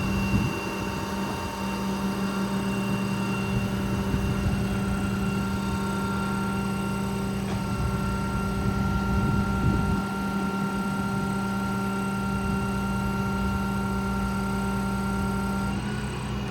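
Truck's 6.7 Cummins diesel running with the hydraulic system whining steadily while the Stellar 7621 hydraulic crane is operated. The pitch of one of the whine tones shifts about halfway through and again near the end as the crane functions change.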